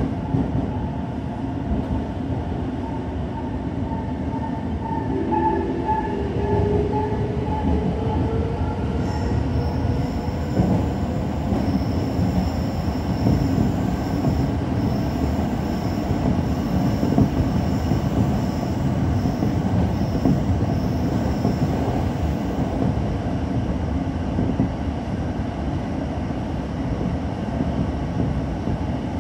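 Tōyō Rapid Railway train running through a tunnel, heard from just behind the cab: a steady rumble of wheels on rail, with a motor whine rising in pitch during the first ten seconds as the train gathers speed. Thin high tones sound over the rumble through the middle of the run.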